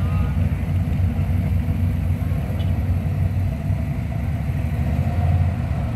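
Low, steady rumble of vintage cars' engines as an old pickup truck and other classic cars drive slowly past, swelling slightly about five seconds in.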